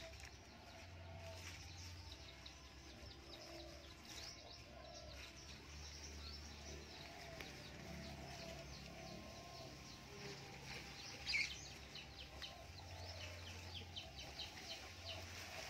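Faint outdoor birdsong: many short high chirps scattered throughout, with one louder, brief call about eleven seconds in, over a low intermittent rumble.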